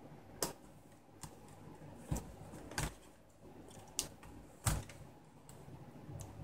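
Toshiba Satellite A665 laptop keyboard being pressed down into its bay: about half a dozen sharp plastic clicks at irregular intervals as the keys and keyboard edge are pushed home.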